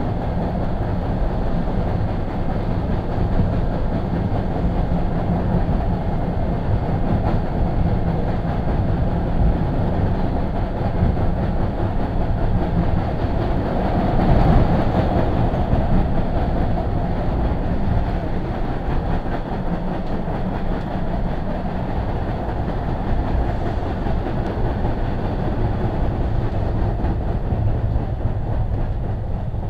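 MBTA Red Line subway train heard from inside the passenger car as it runs along the track: a steady rumble that swells briefly about halfway through.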